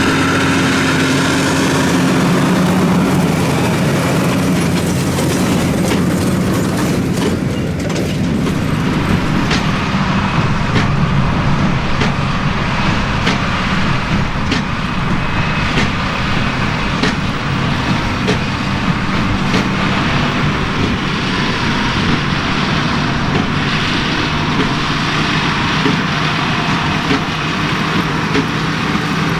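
John Deere 7310R tractor's six-cylinder diesel engine running steadily under load, pulling a New Holland BigBaler 1290 Plus baling straw. From about a third of the way in, sharp knocks repeat about once a second, in step with the baler's plunger strokes.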